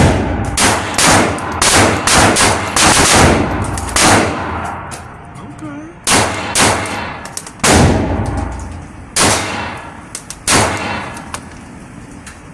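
Semi-automatic pistol shots in an indoor range, each a sharp crack with a short echoing tail. A quick string of shots comes in the first few seconds, then slower single shots every second or so, thinning out near the end.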